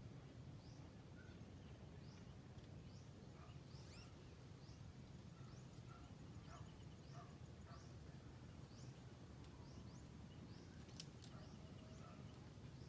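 Faint outdoor ambience: a steady low rumble with short, high rising chirps repeating about once a second, and two sharp clicks near the end.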